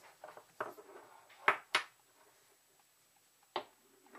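A stone, a terracotta pot and glass knocking together and on a wooden tabletop as they are fitted into a stack. A few light taps come first, then two sharp knocks close together about halfway, and one more knock near the end.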